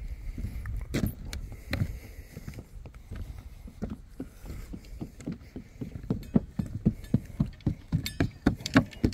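Footsteps on a wooden boardwalk: a quick, even run of knocks, about three a second, that gets clearer and louder over the last few seconds, over a low rumble.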